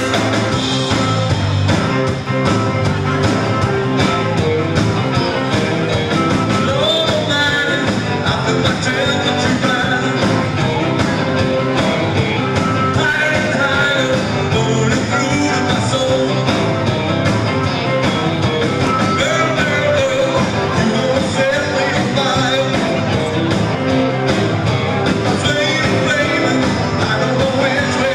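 Live rock-and-roll band playing a dance number, with drums, electric guitar and keyboards, loud and steady with an even beat.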